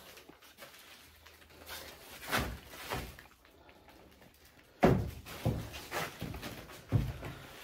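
Furniture and stored things being shifted by hand: a series of knocks and thumps, the loudest a sharp thump about five seconds in, with lighter knocks before and after it.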